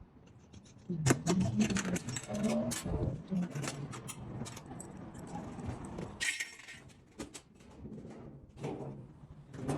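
Irregular clinks and knocks of handling, with a short hiss about six seconds in.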